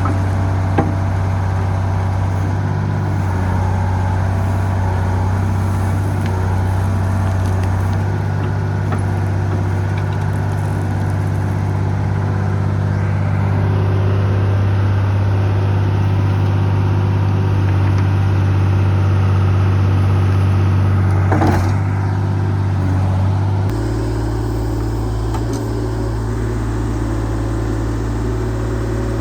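Excavator engine running steadily under load, with a brief knock about 21 seconds in and an abrupt shift in its tone near the end.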